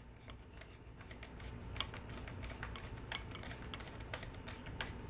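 Faint, irregular clicks and ticks of a small screwdriver turning a screw through a toy shotgun's plastic grip into a hex nut. The screw is not tightening down properly.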